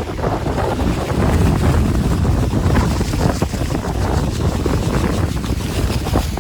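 Strong wind buffeting the microphone in gusts, with sea surf rushing underneath.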